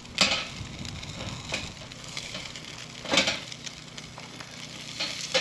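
Metal spatula scraping and knocking on a stainless steel grill grate as hamburger patties are flipped, in a few short scrapes spaced a second or more apart. Between the scrapes the patties sizzle steadily over the charcoal.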